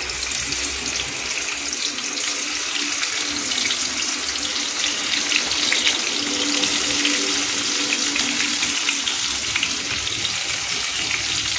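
Marinated prawns sizzling in hot oil in a kadai as they are laid in one by one: a steady hiss with many fine crackles.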